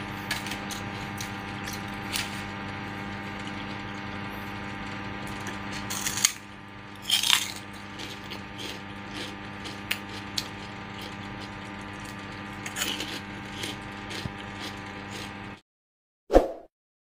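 Someone chewing crispy fried pork rinds (chicharon), with occasional sharp crunches over a steady electrical hum. The sound cuts off suddenly near the end, followed by one short sound-effect blip.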